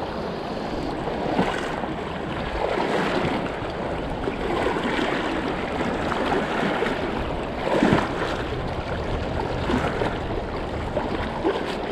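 Shallow rocky creek rushing over stones, with the sloshing of legs wading through the current; a louder splash about eight seconds in.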